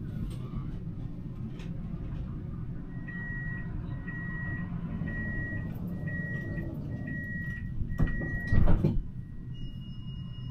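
Siemens Avenio tram's door-closing warning: six short high beeps about a second apart, then the sliding passenger doors shut with a heavy thud. A steady high electronic tone comes on near the end, over a low steady rumble.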